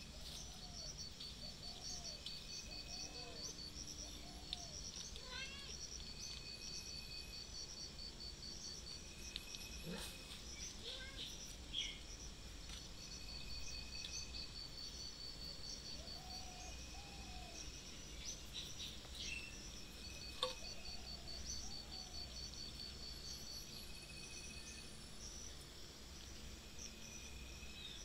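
Outdoor ambience of insects trilling steadily in quick high pulses, with birds chirping and calling now and then, and a couple of faint clicks.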